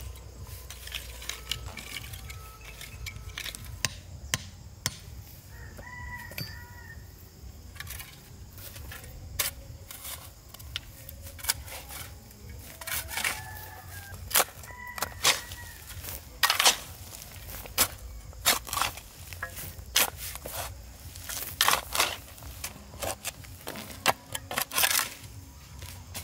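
A hand hoe chopping and scraping into dry, stony soil, one sharp strike after another at an irregular pace, growing denser and louder from about a third of the way in. Chickens call a few times behind it.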